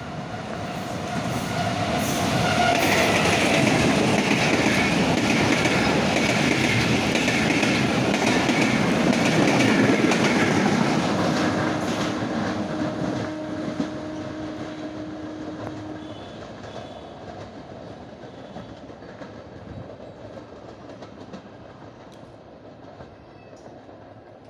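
Bangladesh Railway intercity passenger train, a diesel-electric locomotive hauling coaches, passing through a station without stopping. Its rumble and wheel clatter over the rail joints build up, stay loud for about nine seconds, then fade steadily as the last coach draws away.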